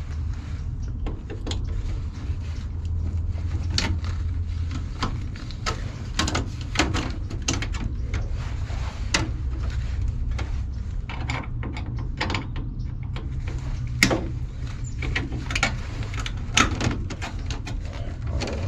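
Irregular clicks, taps and knocks of tools and metal parts being handled while the condenser's electrical is disconnected, over a steady low rumble. Two sharper knocks stand out, about 14 and 16 seconds in.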